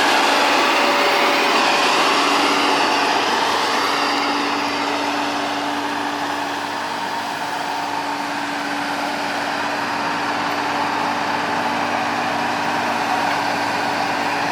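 Excavator running steadily: a continuous machine noise with a constant hum-like tone under a broad hiss, easing off a little midway.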